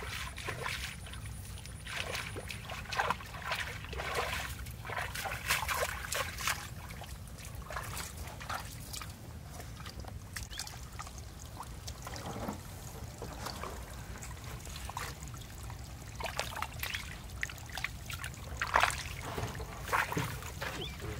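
Irregular splashing and sloshing of shallow muddy water as someone wades through it barefoot, with water trickling, over a steady low rumble.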